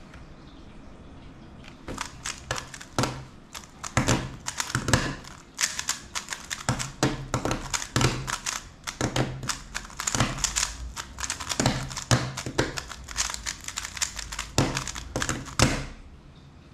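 A MoYu WeiLong WR M 3x3 speedcube turned rapidly one-handed: a dense, uneven run of plastic clicks and clacks starting about two seconds in. It ends near the end with a sharp knock as the cube is put down on the table and the timer stopped.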